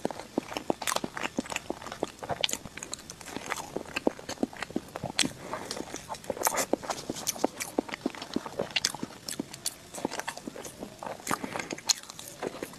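Close-miked eating of a soft dessert: irregular clicks and smacks of biting and chewing.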